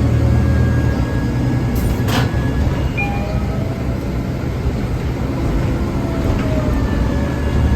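2013 Nova Bus articulated city bus running, heard inside the cabin: a steady low engine rumble with a faint thin whine that drifts slowly in pitch, the odd engine whine the rider noticed. A short knock about two seconds in.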